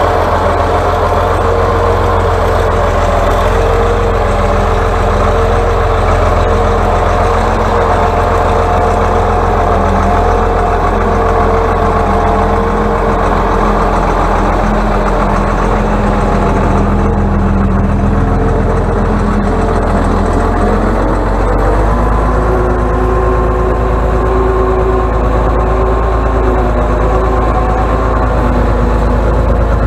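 Diesel engine of an Atlas 1602 wheeled excavator running steadily, its note changing about two-thirds of the way through.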